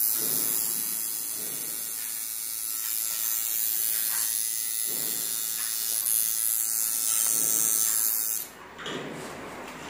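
Coil tattoo machine buzzing steadily as it tattoos skin. It stops about eight and a half seconds in.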